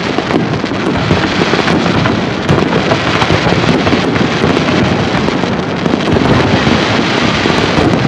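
Aerial fireworks shells bursting overhead: a dense, unbroken run of overlapping bangs and crackles.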